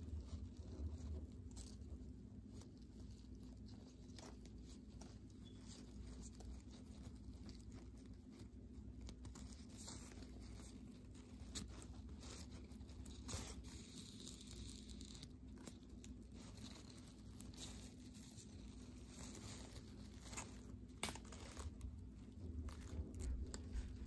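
Tulle netting and satin ribbon rustling and crinkling faintly as hands push a needle and pull thread through them, with scattered small clicks and a few sharper ones near the end. A faint steady hum runs underneath.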